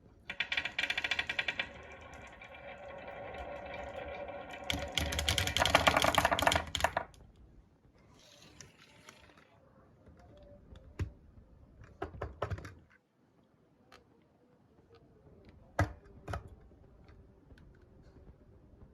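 Marbles rattling and clacking down a wooden HABA marble-run track: a dense, loud rush of clatter for about the first seven seconds, then scattered single clicks and knocks.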